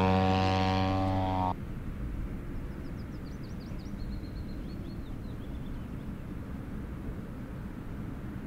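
Model airplane engine droning steadily, its pitch sagging slightly, cut off abruptly about a second and a half in. Then a low wind rumble on the microphone, with a few short high bird chirps in the middle.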